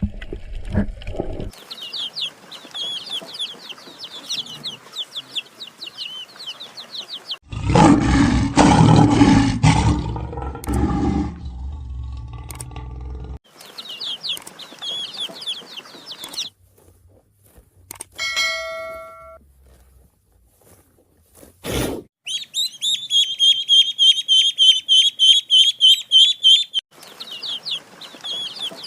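Several stretches of rapid, high chirping bird calls, broken by a loud noisy sound lasting about six seconds a third of the way in and a single sharp knock about two-thirds of the way through.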